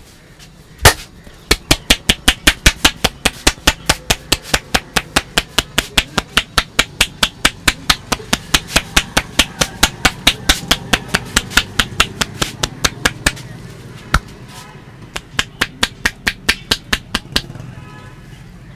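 Percussive hand strikes of an Indian head massage: a single loud slap, then a long run of sharp claps at about four or five a second, a short break, and a second, shorter run.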